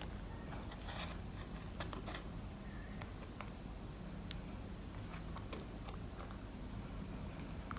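Faint, scattered small clicks and scratches of a tool working at a circlip on the back of a lock cylinder, with the stubborn clip not yet coming free.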